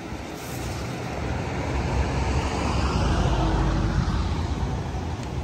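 A passing vehicle: its noise swells to a peak about three to four seconds in and then fades.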